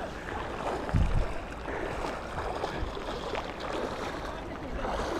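Steady rush of moving water, with a single dull low thump about a second in.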